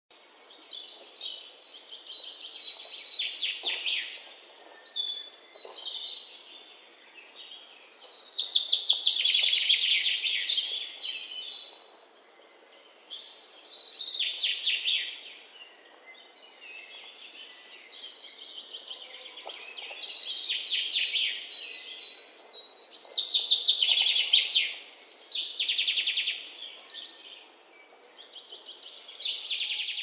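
Small songbirds chirping in repeated bouts of rapid, high trills every few seconds, with short quieter gaps between.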